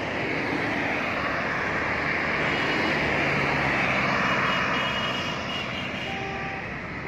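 Highway traffic going by: the tyre and engine noise of passing vehicles swells to a peak a little past the middle and then fades, with a low engine hum under it as they pass.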